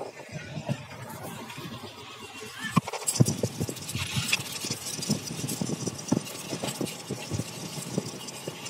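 Passenger train running, heard from inside the coach: a steady rumble with irregular knocks and clatter. A hand brushes the phone's microphone early on.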